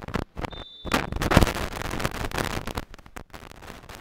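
Beach volleyball play: sharp knocks of the ball being hit, and a short faint referee's whistle about half a second in. Then about two seconds of dense crackling, thumping noise, loudest around a second and a half in, which dies away after about three seconds.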